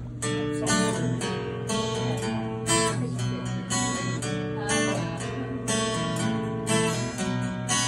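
Acoustic guitar strummed in a steady rhythm, chords starting right away and running through as the instrumental intro of a song, before any singing.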